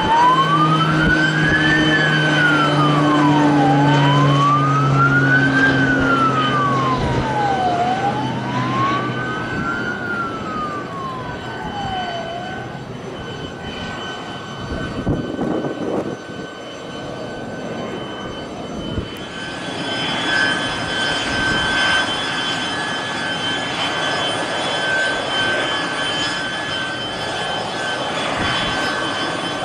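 Air Tractor AT-802 turboprop passing low, its deep engine drone slowly falling in pitch, while a siren wails slowly up and down, about one cycle every four seconds, for the first dozen seconds. About two-thirds of the way through, a steady high turbine whine comes in.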